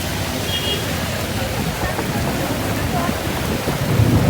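Steady hiss of heavy rain with a low traffic rumble under it, and a faint short car horn about half a second in.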